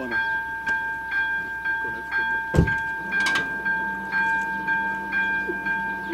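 Level-crossing electronic warning bell (ZV02) ringing steadily at about two strokes a second. About two and a half seconds in a loud clunk sounds, then a steady low motor hum starts as the barrier booms begin to come down.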